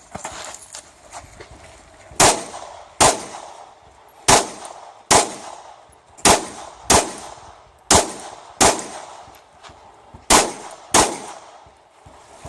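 Pistol shots in a practical shooting string: ten sharp reports fired as five pairs, about three quarters of a second between the shots of each pair and a slightly longer gap between pairs. Each shot rings briefly.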